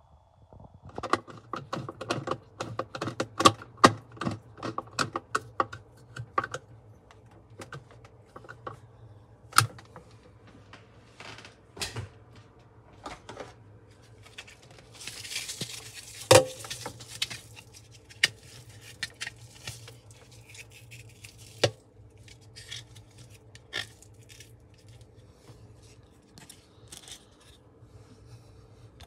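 Clattering handling noise: a quick run of sharp clicks and knocks for the first few seconds, then scattered knocks, with a brief hiss about halfway through over a faint steady hum.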